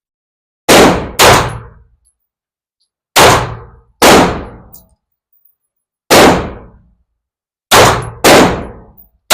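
A compact Springfield semi-automatic pistol fired seven times at an uneven pace, some shots in quick pairs about half a second apart and others single with gaps of one to two seconds. Each shot is very loud and trails off in echo, and another shot follows right at the end.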